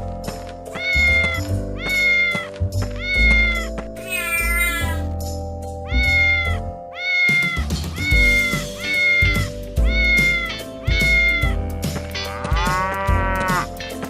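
Cat meowing again and again, about once a second, over backing music, with a longer call rising in pitch near the end.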